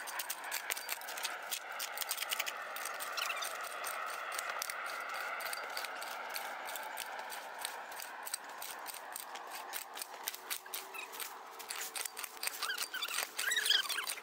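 A small spade scraping and chopping into soil and leaf litter, a run of short crunching scrapes that comes thickest near the end.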